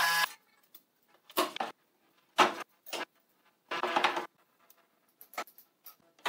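A wooden mallet's rapid tapping on a pine frame stops just after the start. Then come a handful of separate metallic knocks and short scrapes, about one a second, as steel pipe clamps are laid across the wooden frame and their jaws slid into place.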